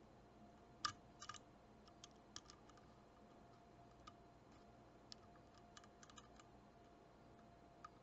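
Faint, scattered clicks and ticks of a lock pick working the pins of a pin-tumbler padlock, with a tension wrench in the keyway. A stubborn pin stays stuck because the core is under too much tension. The sharpest click comes about a second in, with a small cluster just after, over a faint steady hum.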